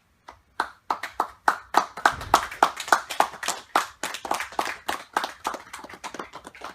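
Audience clapping, the separate claps easy to pick out, starting a moment in.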